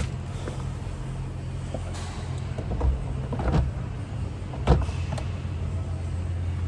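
Several sharp clicks and knocks of interior plastic trim being handled inside a pickup's cab, over a steady low hum.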